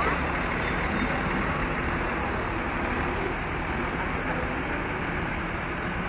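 Steady running noise of large buses and traffic, with a brief hiss about a second in; no telolet horn sounds.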